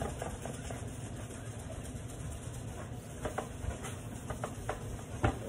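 Soft scratchy rubbing of wet 1000-grit sandpaper worked by hand over a plastic headlight lens. Under it runs a steady low hum, and a few light clicks come in the second half.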